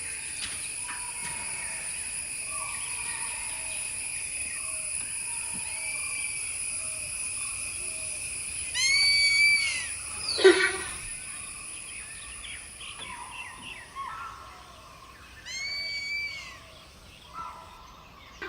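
Wild forest ambience: a steady high-pitched drone, typical of insects, fades out about two-thirds of the way through. Over it come many small bird chirps, two bursts of repeated arched bird calls several seconds apart, and one sharp, loud call between them.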